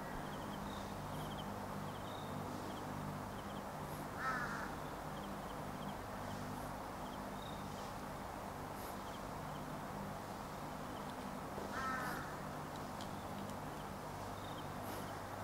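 Two short, harsh bird calls about eight seconds apart, over a steady low hum and faint high chirping.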